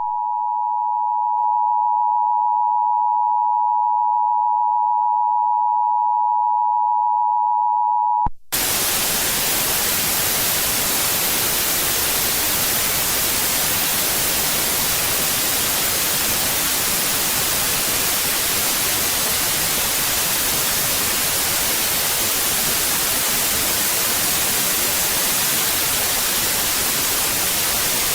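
Emergency Alert System attention signal: a steady two-tone beep held for about eight seconds that cuts off abruptly, followed by loud, unbroken white-noise static.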